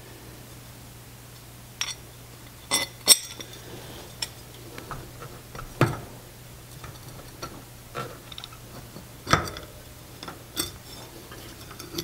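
Bicycle rear sprocket and its mounting bolts clinking and tapping against the wheel's spokes and hub while being lined up and bolted on by hand: about nine separate metallic clinks, the loudest about three seconds in.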